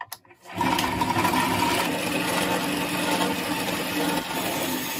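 Electric drill boring a hole through the steel katana blade for the handle, its motor starting about half a second in and running steadily under load.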